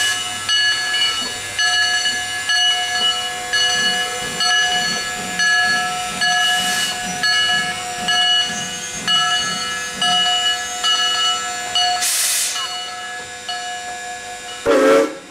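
Steam locomotive standing with steam up, hissing with a rhythmic pulsing about one and a half beats a second. It gives two short blasts of steam, and one loud brief burst comes near the end.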